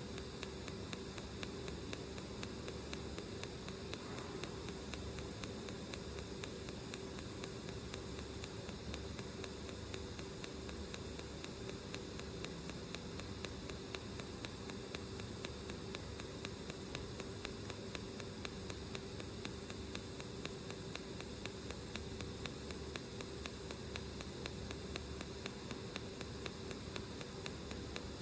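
TIG welding arc on stainless steel: a steady, even hiss with a faint hum and fine rapid crackle, unchanged throughout.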